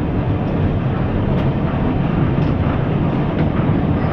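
Historic tram moving along the track, heard from inside its wooden car: a steady rumble with a few faint clicks about once a second.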